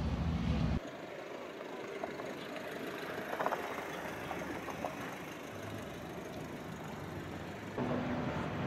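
Steady low hum of an idling engine that cuts off about a second in, leaving quieter outdoor ambience with a few faint clicks. A low idling-engine hum comes back near the end.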